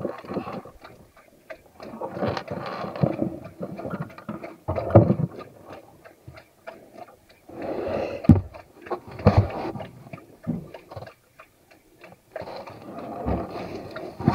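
Handling noise close to the camera: irregular clicks and taps with several heavy thumps.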